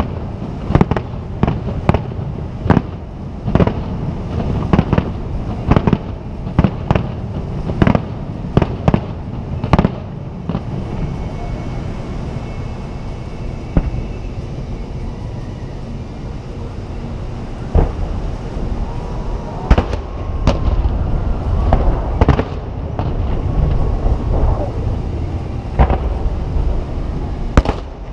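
Aerial fireworks shells bursting in quick succession, sharp bangs about once a second for the first ten seconds. A lull follows, then scattered bursts resume about eighteen seconds in, over a steady low rumble.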